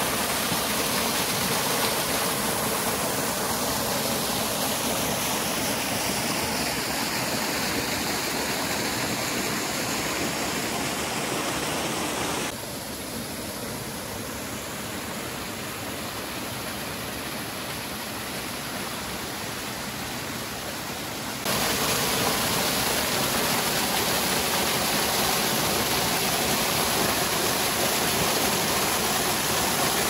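Steady rush of water from a small waterfall and the stream below it, an even splashing hiss. It drops suddenly quieter about twelve seconds in and comes back up just as suddenly about nine seconds later.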